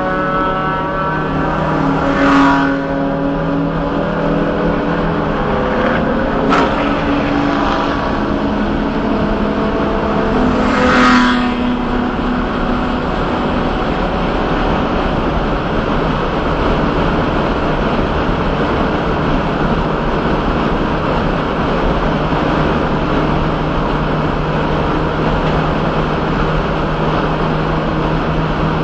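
Race car's engine running at steady high revs at racing speed, heard from inside the cabin with heavy wind and road noise. There are three brief louder swells, about 2, 6 and 11 seconds in.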